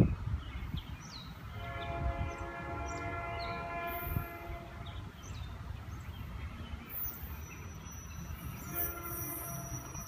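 Distant approaching NJ Transit commuter train sounding a Nathan K5LA five-chime air horn: one long chord blast starting about 1.5 s in and lasting about three seconds, then a short blast near the end. Birds chirp faintly over a low rumble.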